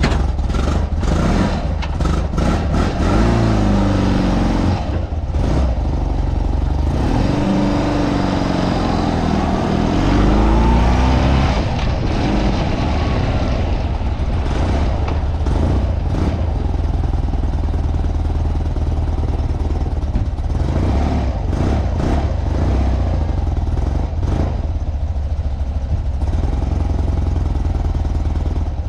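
1985 BMW R80G/S Paris-Dakar's air-cooled boxer twin engine running under way, heard from the saddle. Its pitch climbs twice in the first ten seconds as it accelerates, then it runs steadier at low town speed.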